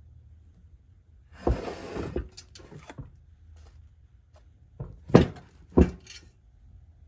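A bare air-cooled VW engine case being handled on a workbench: a rough scraping rustle about a second and a half in, then a few sharp knocks, the two loudest about half a second apart.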